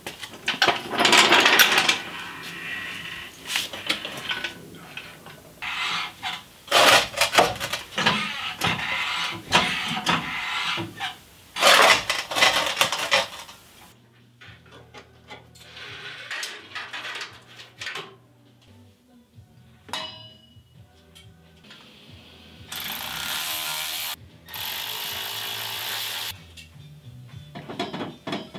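Garage work noise of metal tools and parts clanking, knocking and scraping, busy for the first half and then sparse, over quiet background music. Near the end there are two steady noisy spells of a second or two each.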